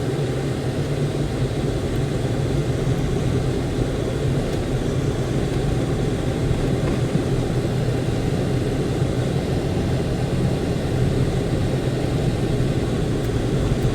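Steady engine and tyre noise of a car driving on a snow-covered road, with a constant low hum.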